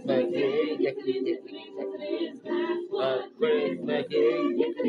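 A man singing a show tune, holding some notes and moving quickly between others.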